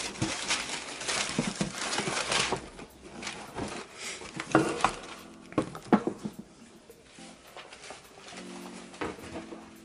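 Tissue paper rustling and crinkling as a pair of sneakers is lifted out of a shoebox, followed by a few sharp knocks as the shoes are handled and set down, then quieter handling.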